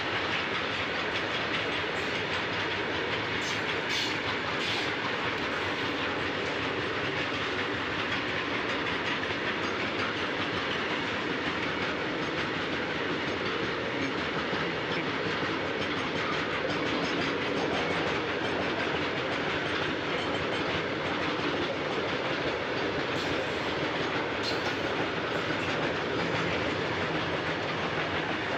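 Long freight train of open-top steel wagons rolling past close by: a steady, continuous noise of steel wheels running on the rails that holds even throughout.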